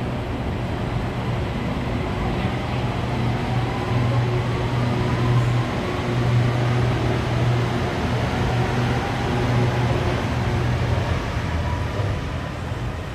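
MRT Yellow Line monorail train running, a steady rumble with a low hum and an electric motor whine that rises slowly in pitch as the train picks up speed.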